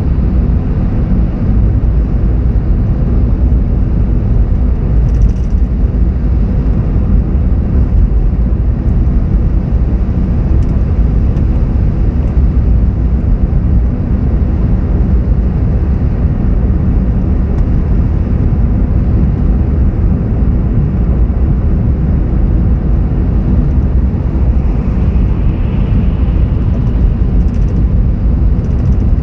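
Car driving along a city road: a steady low rumble of engine and tyre noise.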